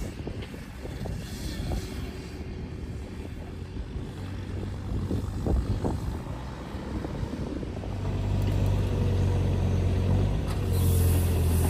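Tractor engine running steadily at a distance while pulling a round baler; about eight seconds in, a nearer tractor engine takes over as a louder, steady low drone.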